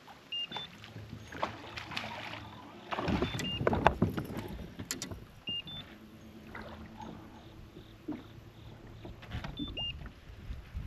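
Sounds on a fishing kayak. A short rising two-note electronic beep repeats several times over the low hum of a small electric motor, with knocks and water noise against the hull that are loudest about three to five seconds in.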